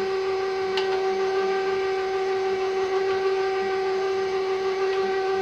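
KitchenAid stand mixer running at low speed with its meat grinder attachment, grinding chunks of lamb: a steady, even motor whine. There is a light click about a second in.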